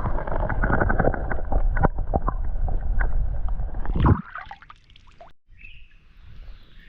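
Creek water sloshing and gurgling close by, with many small knocks through it, for about four seconds, then stopping abruptly.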